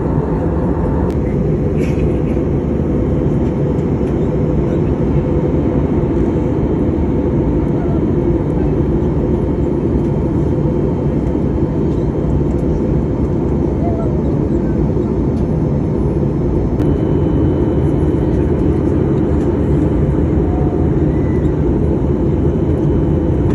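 Steady cabin noise of an Airbus A320neo in flight, heard near the wing: the rush of its CFM LEAP-1A turbofan engine and airflow, with a faint steady hum underneath.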